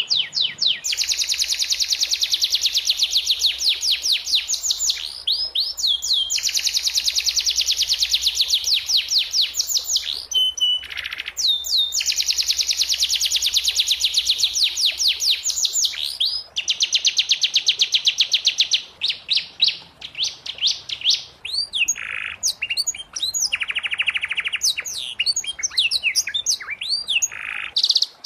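Domestic canary singing: long runs of rapid, evenly repeated trills and rolls with brief breaks. After about the middle, the runs give way to looser, varied short phrases and quick chirps.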